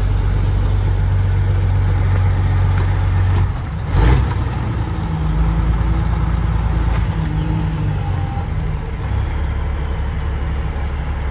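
Caterpillar 3406E inline-six diesel of a Freightliner FLD120, heard from inside the cab, pulling at low speed through town turns. The engine note drops about three and a half seconds in, and a short, sharp burst of noise follows just after. The engine then pulls again and settles to a lower drone near the end.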